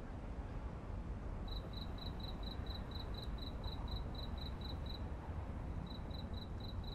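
Cricket chirping in a steady rhythm, about four short high chirps a second, starting about a second and a half in and pausing briefly near the end, over a steady low background rumble.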